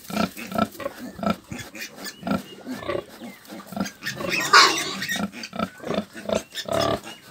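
Nursing sow grunting in short, regular grunts, two or three a second, as her piglets suckle, with a louder, short squeal about four and a half seconds in.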